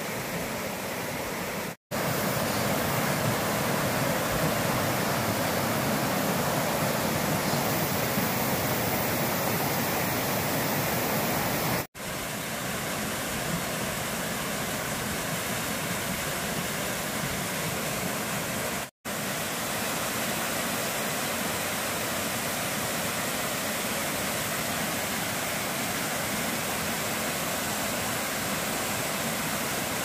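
Steady rushing water of a rocky mountain stream and its small waterfalls pouring over boulders. It breaks off for an instant three times, about 2, 12 and 19 seconds in.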